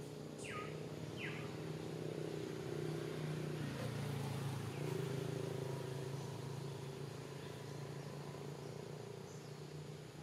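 Outdoor ambience dominated by a steady low engine-like drone. Two short falling chirps come about half a second and just over a second in.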